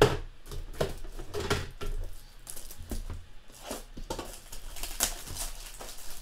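Handling a cellophane-wrapped pack of Ultra Pro plastic toploaders: a few knocks and taps, the loudest right at the start, then crinkling of the plastic wrapper from about halfway on.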